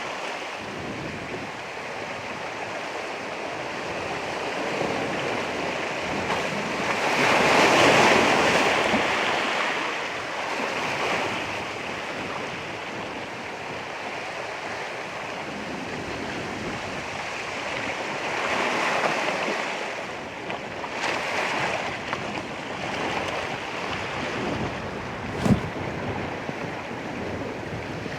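Ocean waves breaking on the shore: a steady wash of surf that swells as waves come in, loudest about eight seconds in and again around nineteen seconds. A single brief sharp tap near the end.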